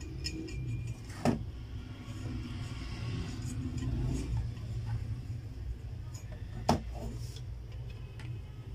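Handling noise from a scale's hollow height-measuring rod as a cable is pulled through it, with two sharp knocks, one a little over a second in and one about two seconds before the end, over a steady low rumble.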